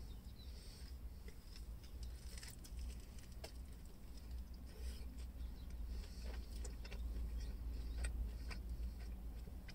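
Faint eating sounds: chewing and the handling of a soft tortilla wrap in its paper sleeve, with scattered small crackles over a low steady hum.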